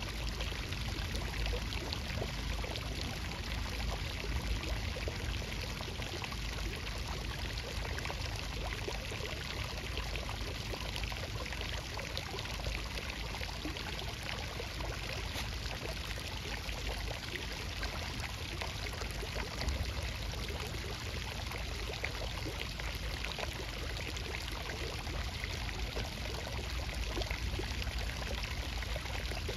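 Steady rush of flowing water: an even hiss that does not change.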